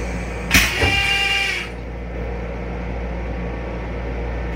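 Metro-North M7 railcar toilet flushing: a sudden loud rush about half a second in, lasting about a second with a whistling tone in it, over a steady low hum. A second rush starts at the very end.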